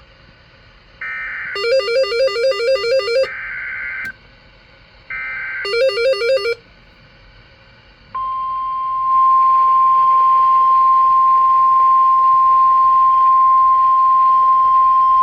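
NOAA Weather Radio Emergency Alert System signal. First come two bursts of the buzzing SAME digital header, overlaid with rapid pulsing electronic beeps. About eight seconds in, the steady 1050 Hz warning alarm tone starts and holds, announcing a new severe thunderstorm warning.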